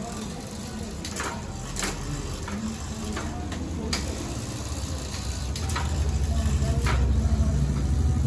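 Scattered light clicks and knocks of bicycle parts being handled during assembly. A low engine rumble swells in over the second half and becomes the loudest sound.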